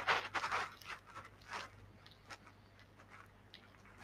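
Quiet room tone with a steady low hum, and a few faint short clicks and rustles in the first second and a half.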